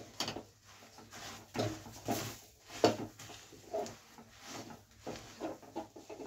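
A utensil stirring and scraping a thick, sticky mix of hot jaggery syrup with nuts and sesame in a pan: irregular scrapes and knocks, the loudest one a little before the middle.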